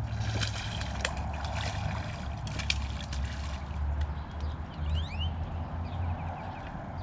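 Hooked channel catfish splashing and sloshing at the water's surface as it is reeled in to the bank, with sharp splashes mostly in the first few seconds before it is lifted out.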